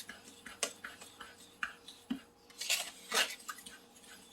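A utensil stirring a dry mix of washing soda, baking soda and salt in a bowl: scattered clinks and scrapes, with two longer, louder scrapes about three seconds in.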